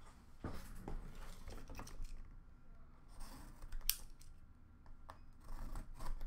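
Trading cards and their packaging being handled: a string of light clicks and rustles, with one sharper click about four seconds in.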